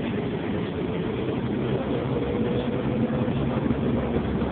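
Subway train running, heard from inside the car: a steady rumble and rattle with a faint motor whine.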